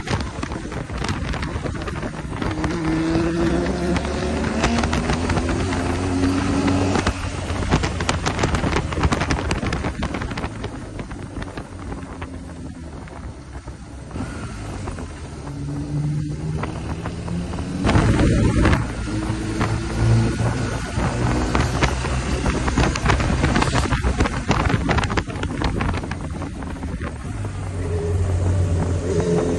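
Motorcycle engine running on the move, its pitch climbing as it accelerates and dropping as the throttle eases, several times over, with wind buffeting the microphone.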